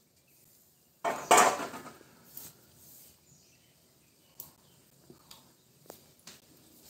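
A single loud stir about a second in: a utensil scraping through dal against a steel pan for about a second, followed by a few faint, scattered clicks.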